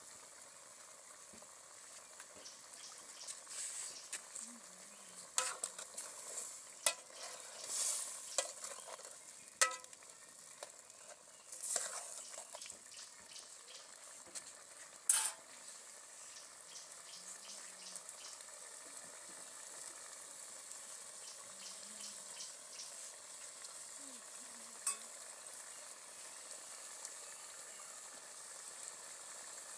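Soup simmering in a pot over an open wood fire: a steady hiss with sharp crackles and pops scattered through, a few of them louder.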